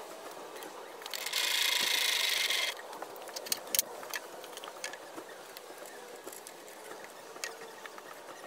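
Workshop handling sounds: a steady hiss lasting about a second and a half, then a few light knocks and taps of wooden parts being set on the table saw's top.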